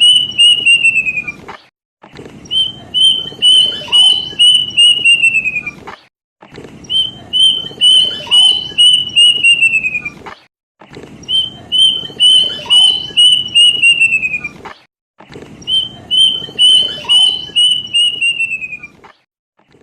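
Plaintive cuckoo (kedasih) song: a run of about eight to nine whistled notes that slide downward at the end, repeated about every four seconds. The first phrase is already under way and four more follow. It is a lure recording meant to set other birds singing.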